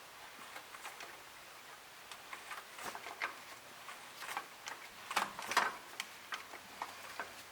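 Irregular light clicks and taps, with a few louder ones about five seconds in.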